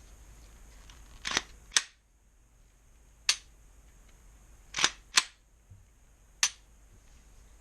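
Sharp metallic clicks from a Glock pistol seated in a CCA Micro Conversion Kit chassis as it is handled, six clicks in all, some in close pairs.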